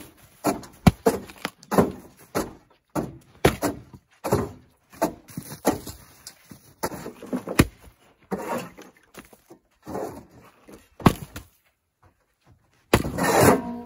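Splitting axe striking and cracking firewood rounds on a chopping block, mixed with a steel shovel scraping and knocking on the pickup's bed: an irregular run of sharp knocks and thuds, about two a second.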